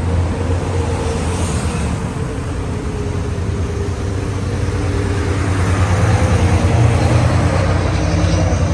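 A motor vehicle's engine running steadily, growing somewhat louder about halfway through.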